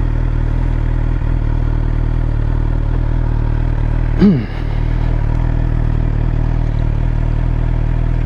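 Suzuki GSX-R 750's inline-four engine idling steadily, with no revving.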